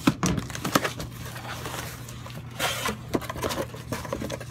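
Cardboard shipping box being opened and its contents handled by hand: packing paper rustling and scraping, with a quick run of sharp clicks and knocks in the first second. A steady low hum sits underneath.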